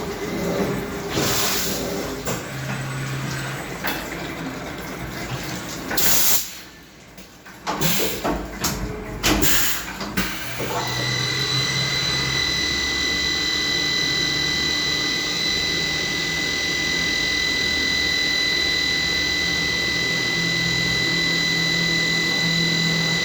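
CNC machining centre at work. Short hissing blasts and knocks come in the first ten seconds, with a brief lull between them. From about eleven seconds in, a steady high-pitched whine of the spindle turning holds to the end.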